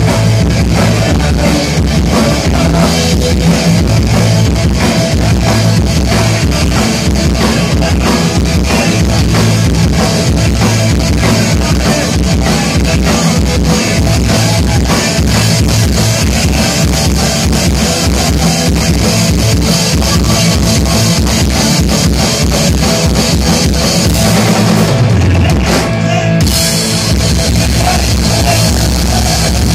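Live punk rock band playing loud: distorted electric guitar and bass over a steadily pounding drum kit. About 25 seconds in a low sliding note falls and the cymbals briefly drop out, then the full band carries on.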